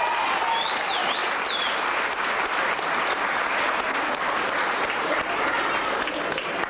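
Audience applauding steadily in a hall as a dance performance ends, with a warbling whistle from the crowd rising and falling twice about a second in.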